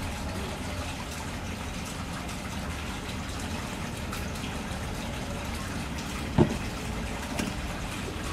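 Steady low background rumble with faint crackles from a plastic oil squeeze bottle being handled, and one sharp knock about six seconds in.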